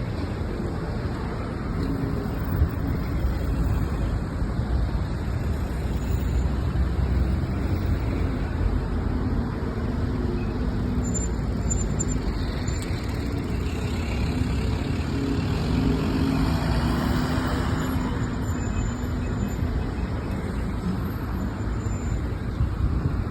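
City street traffic: cars and buses passing with a continuous low engine rumble that swells and fades as vehicles go by.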